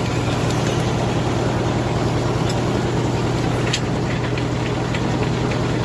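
Engine running steadily at a constant speed, with a few faint clicks about three and a half seconds in.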